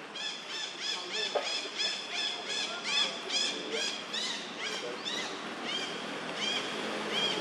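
A rapid series of short, high, arched animal calls, about three to four a second, slowing toward the end.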